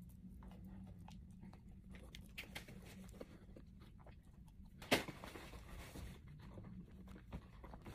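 Faint chewing and mouth sounds of a person eating a piece of chocolate bar, small scattered clicks, with one sharper click about five seconds in.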